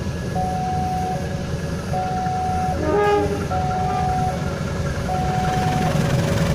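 An electronic warning signal alternating between a higher and a lower tone, each held just under a second, like a railway level-crossing alarm. Under it is a low rumble, with a brief toot about three seconds in, as a CC 203 diesel-electric locomotive approaches.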